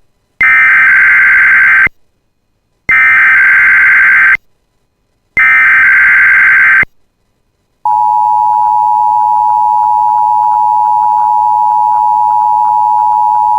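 Emergency Alert System test tones. The digital SAME header is sent three times, as three identical loud data bursts of about a second and a half each with a second's silence between them. Just past halfway, a single steady attention tone starts and holds.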